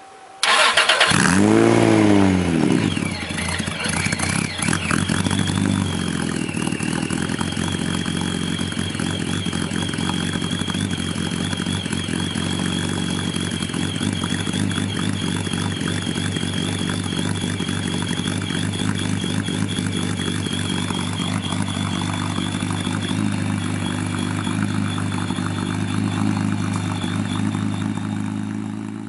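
Honda NSX V6 starting through a Taitec aftermarket exhaust: it catches about half a second in, flares up in revs and settles within a few seconds into a steady idle, with a thin high whine above it.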